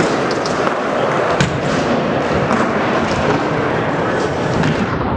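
Busy skatepark noise: a steady rolling roar of wheels on ramps with scattered sharp clacks and thuds of landings and impacts.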